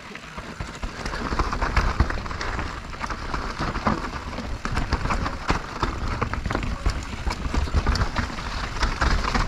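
Mountain bike riding down a rough natural singletrail: tyres crunching over dirt and stones, and the bike clattering and rattling over bumps in a dense run of knocks. Wind rumbles on the helmet-camera microphone.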